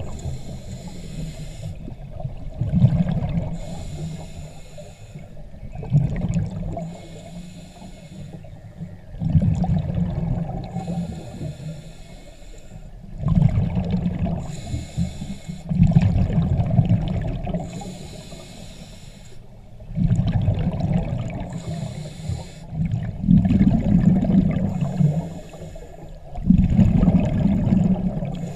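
Scuba diver breathing through a regulator underwater: a rush of exhaled bubbles about every three to four seconds, with a fainter hiss of the inhale in between.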